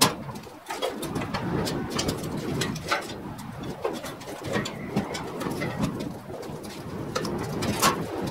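Short metal knocks and clanks as an engine and transmission hanging from a shop engine hoist are guided into a van's engine bay, with a sharp knock at the start and another near the end, over a continuous low background sound.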